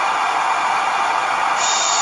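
Steady sleep-aid white noise: a recorded 'shh' shushing sound layered over falling rain. The higher part of the hiss drops away for about a second and a half and comes back near the end.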